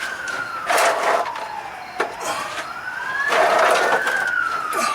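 A wailing emergency-vehicle siren, two overlapping wails slowly rising and falling in pitch. Twice a loud hissing rush cuts across it, about a second in and again past the three-second mark.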